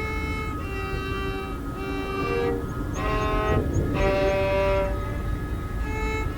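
Background music of held chords, each note sustained for about a second before the harmony shifts, over a steady low rumble.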